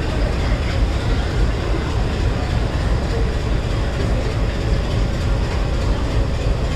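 Train rolling along the track, a steady rumble.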